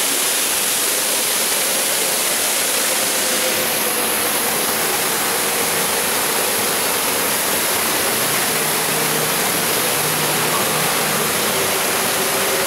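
Steady rushing splash of an artificial waterfall pouring into the boat ride's water channel. A faint steady hum sits beneath it from about four seconds in.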